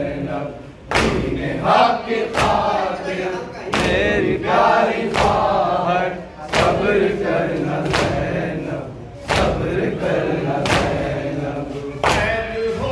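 Men chanting a noha together in a hall, with a loud collective slap of hands on chests (matam) about every one and a half seconds keeping the beat of the lament.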